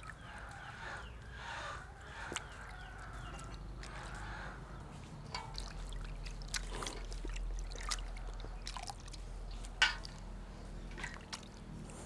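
Water sloshing and dripping as hands rub and squeeze tiny shrimp in a steel bowl of water, with a few light clicks now and then.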